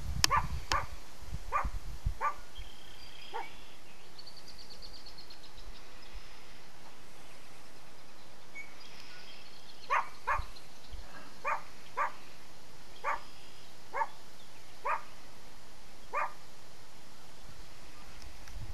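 A dog barking in single short barks: a run of five in the first few seconds, then after a pause eight more spaced about a second apart from about ten seconds in.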